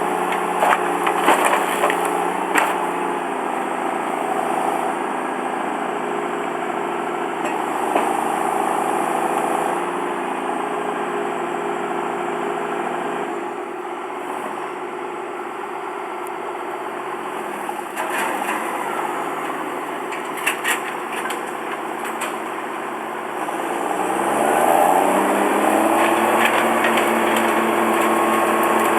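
Wood chipper's engine running, with a few sharp knocks and cracks of wood. The engine eases off a little before halfway, then revs back up with a rising pitch about three-quarters of the way through and runs on steadily.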